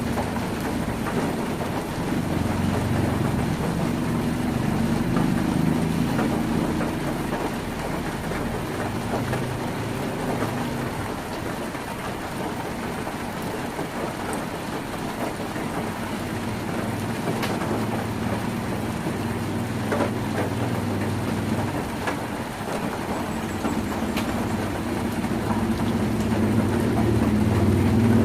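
Heavy rain drumming on a tin roof, with a low engine-like hum underneath that fades in the middle and grows louder near the end.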